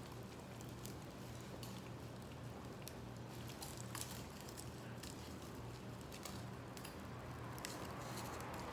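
Small wood fire crackling faintly, with scattered small pops over a low steady hum.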